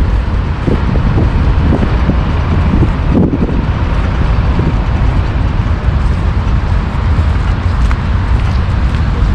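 City street noise: car traffic going by, under a steady low rumble of wind on the microphone.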